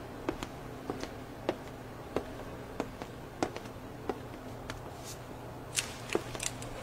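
Light clicks and taps at irregular spacing, about one or two a second, over a faint steady low hum.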